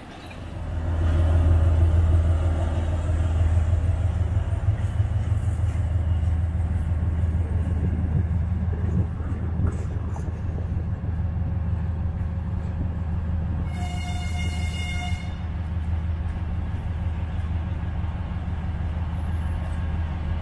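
Diesel locomotive engine rising within the first second or so to a loud, steady low drone, held throughout. A single train horn blast of about a second and a half sounds some fourteen seconds in.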